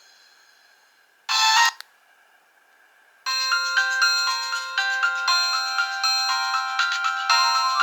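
Nokia 1800 ringtones playing. A short burst of tone comes just over a second in, then a brief pause. About three seconds in, a new electronic ringtone melody of quick, steady notes begins.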